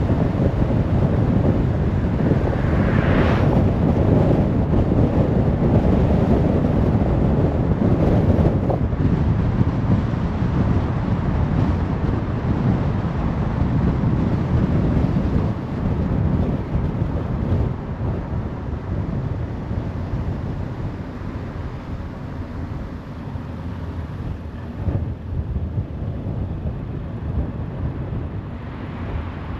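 Car driving on a motorway: steady tyre and wind noise. A brief whoosh rises in pitch about three seconds in, and the noise eases off somewhat after about sixteen seconds.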